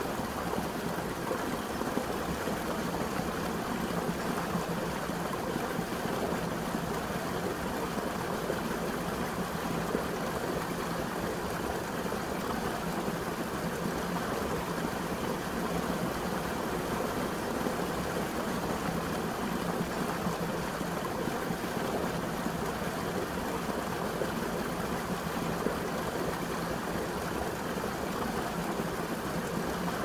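Small waterfall pouring over a rock step into a pool: a steady rush of falling water.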